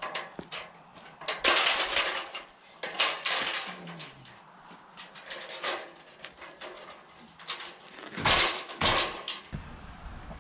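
Aluminium extension ladder clattering and clanking as it is handled and stood up against a wall, in several separate rattles with small clicks between.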